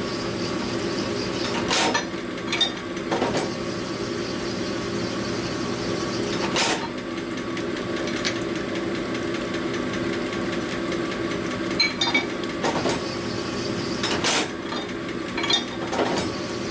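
Connecting-rod honing machine running with a steady hum while a rod is worked back and forth over the honing stone, with sharp metallic clinks now and then as the steel rod knocks against the machine.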